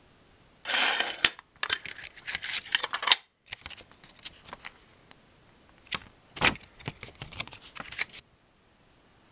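Handling noise from a cassette tape and its folded paper J-card insert: clicks, then crisp paper crackling and rustling as the insert is unfolded, broken by a moment of dead silence about three seconds in.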